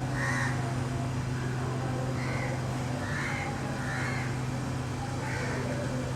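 A bird calling repeatedly, about five short calls spaced a second or so apart, over a steady low hum.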